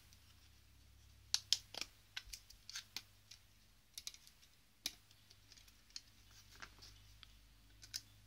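Irregular light clicks and taps of hard plastic as an old BlackBerry handheld's plastic case is handled and worked open with a small screwdriver.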